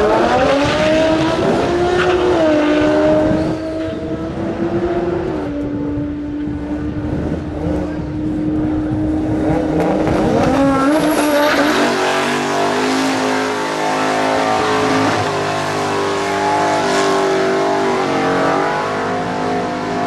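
Drag-racing car engines at full throttle. First a launch, its pitch climbing and stepping at each gear change. About halfway through, another engine comes in and is held at high revs with tyres squealing, as in a burnout.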